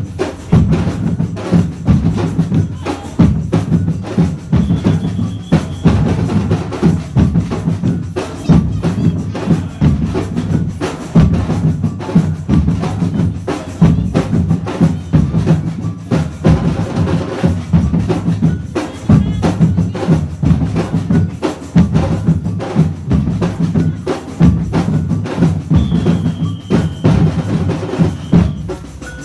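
A drum band playing, with bass and snare drums beating a steady, loud rhythm.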